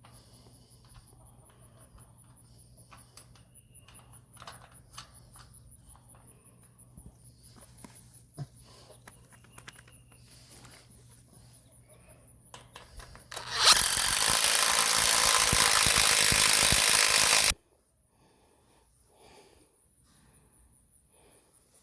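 Light clicks and knocks of metal fence panels being handled, then a power tool runs loudly for about four seconds and cuts off suddenly.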